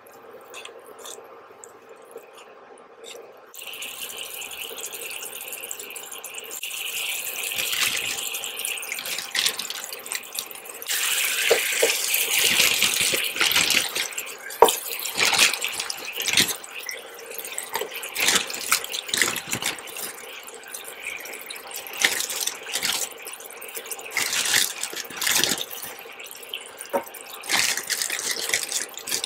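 Oil, garlic and herbs sizzling in a hot grill pan. The sizzle starts a few seconds in and grows louder once the brown sauce is in, with sharp crackles and spits as scallops are laid into the pan.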